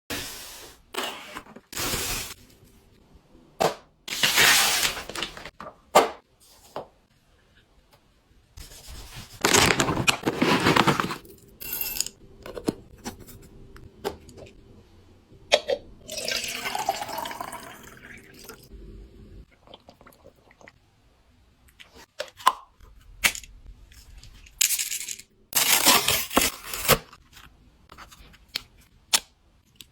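A string of handling sounds from unpacking and trying out household gadgets: sharp clicks and taps between bursts of rustling or hissing noise lasting a second or two.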